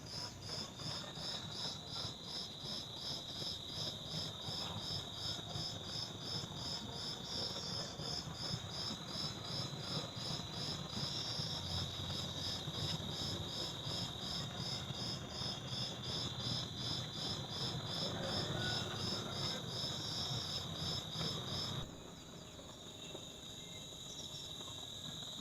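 Insects chirping: a steady high trill with a second insect's evenly repeating pulsed chirps over a low rumble. The pulsed chirping cuts off abruptly near the end while the trill goes on.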